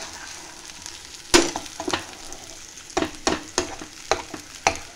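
Metal spatula stirring and pressing mashed potato stuffing in an oiled frying pan, knocking and scraping against the pan several times, the loudest knock about one and a half seconds in, over a faint sizzle of the filling still cooking.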